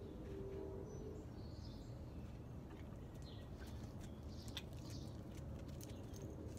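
Faint outdoor ambience: birds chirping now and then over a low steady rumble, with a few soft ringing tones in the first second.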